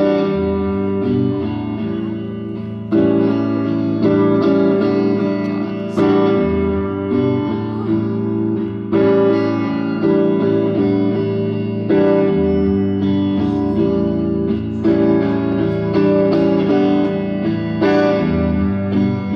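Solo guitar playing the introduction to a song through a venue PA: chords struck about every one to one and a half seconds and left to ring, with no singing yet.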